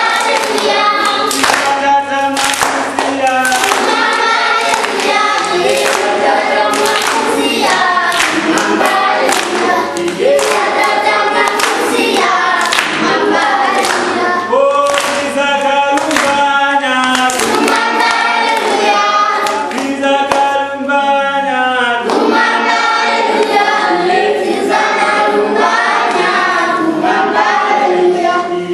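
A group of school children singing together without instruments, with sharp beats keeping time roughly once a second.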